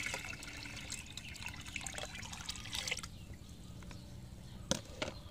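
Liquid fertilizer mix poured from a container into a plastic basin of water, splashing and gurgling until the pour ends about three seconds in. Two sharp knocks follow near the end.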